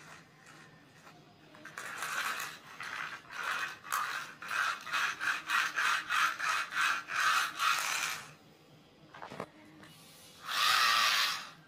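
Plastic toy mouse rasping against a concrete floor as it is pushed quickly back and forth: a run of quick scraping strokes, several a second, lasting about six seconds, then one longer rasp near the end.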